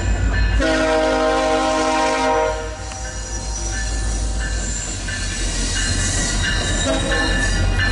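VIA Rail passenger train arriving behind diesel locomotive 6452, with a steady low rumble throughout. About half a second in, the locomotive's horn sounds one chord blast of nearly two seconds. From about three seconds in, high-pitched wheel and brake squeal comes and goes as the train slows to a stop.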